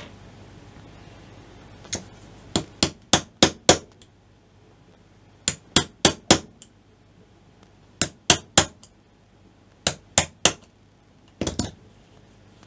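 Sharp clicks and taps in quick groups of two to five, a few tenths of a second apart, as a scalpel blade is pressed and levered into the melted-shut seam of a 9 V lithium-ion battery's plastic casing to split it open.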